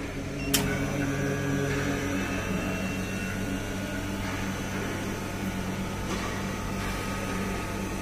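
Vacuum pump of an ATS Elgi car AC recovery and charging machine running with a steady hum, pulling a vacuum on the car's air-conditioning system to draw out air and moisture before the refrigerant charge. A sharp click about half a second in.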